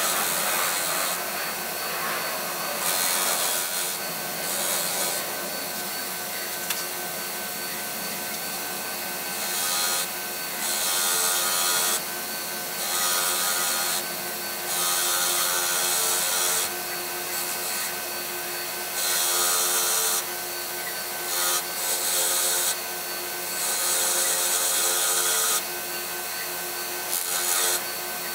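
WEN bench grinder running with a steady motor hum while a small part is pressed against its spinning wire/buffing wheel in repeated passes, giving a high scrubbing hiss that comes and goes every second or two as rust and grime are cleaned off.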